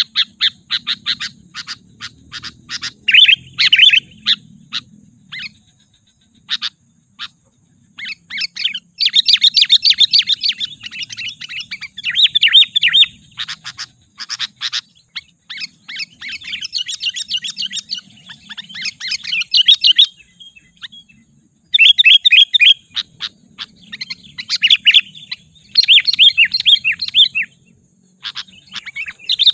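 Sooty-headed bulbul singing: phrases of quick, chirpy notes about a second long, repeated with short pauses, with scattered single sharp notes in the first several seconds.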